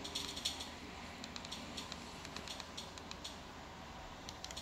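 Fire TV remote's direction buttons clicking in quick, irregular runs of light clicks as a menu list is scrolled, over a faint low room hum.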